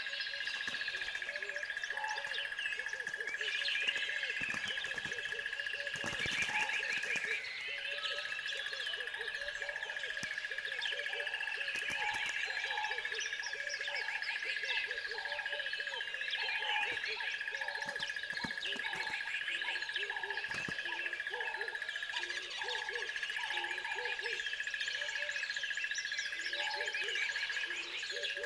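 Dense bird chorus: many small birds chirping and trilling together, over a row of low hooting calls repeated about twice a second. A steady high tone runs underneath.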